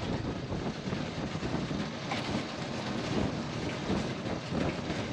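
Wind buffeting the microphone on a moving motorbike, a continuous low rumbling rush.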